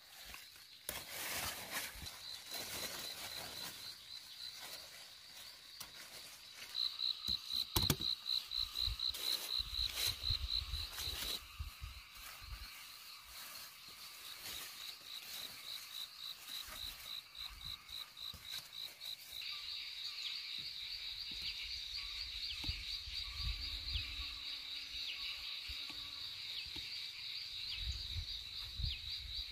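Field insects chirping in a rapid, even pulse, several chirps a second, loudest about a quarter of the way in and turning into a steadier trill in the second half. Leaves rustle near the start as the vines are handled.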